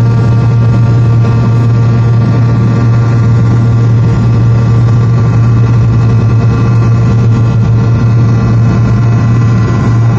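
Fokker 100's rear-mounted Rolls-Royce Tay turbofans at high thrust, heard inside the cabin during the take-off roll: a loud, steady drone with a deep hum and several held whining tones over rushing noise.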